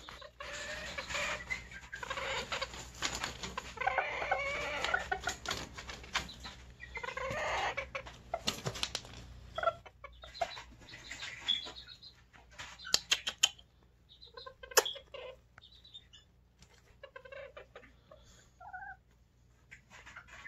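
Serama bantam chickens clucking, with scattered clicks and rustles. The sound is busiest in the first half, then thins to occasional short calls and clicks.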